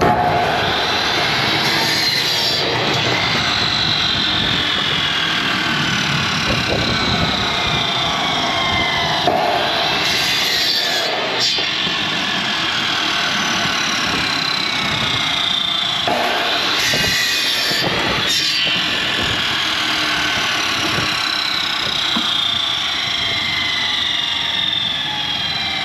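Wood-Mizer portable band sawmill running, its band blade cutting lengthwise through a log. A loud, steady running sound with tones that keep sliding slowly down in pitch.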